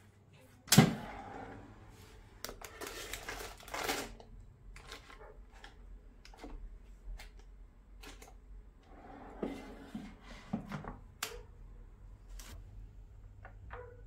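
Kitchen handling sounds: a sharp knock about a second in, a stretch of rustling, then scattered clicks and knocks as the basket of a Philips air fryer is loaded.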